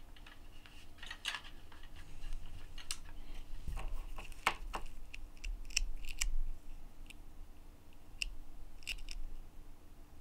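Faint, irregular small clicks and ticks of a plastic jelly phone strap charm and its little chain being jiggled and yanked by hand.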